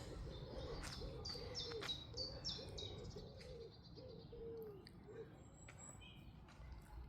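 Faint birdsong: a series of high chirps stepping down in pitch in the first few seconds, over a run of about a dozen quick low arched calls that stop about five seconds in.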